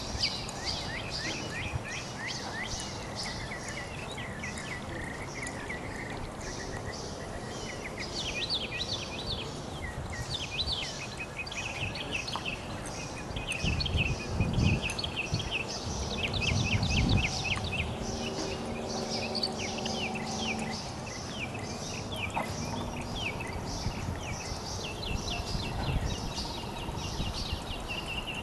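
Outdoor ambience of many birds chirping, with quick repeated high chirps throughout. About halfway through, low rumbling noise rises for several seconds, followed by a low steady drone lasting about four seconds.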